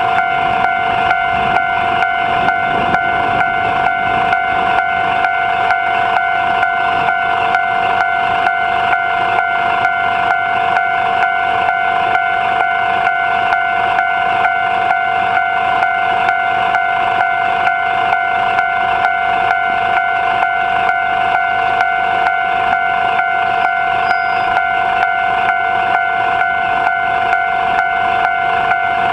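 Japanese railway level-crossing alarm ringing continuously: an electronic bell tone repeating at a quick, even rhythm, the signal that the crossing is closed for a train.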